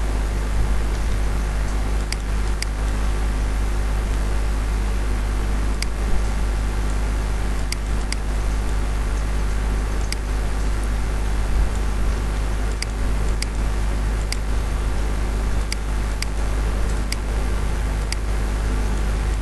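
Steady low electrical hum with a constant hiss, with light mouse clicks at irregular intervals, one every second or so.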